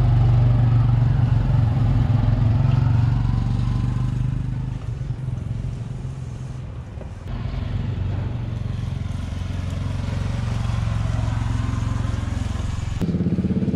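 An engine running close by: a steady low hum with fine pulsing. It dips and changes about seven seconds in, and again near the end.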